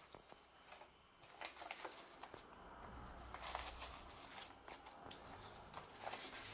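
Faint rustling and light taps of large green leaves and flower stems being handled and pressed against plastic cups of a bouquet. A faint low hum joins about halfway through.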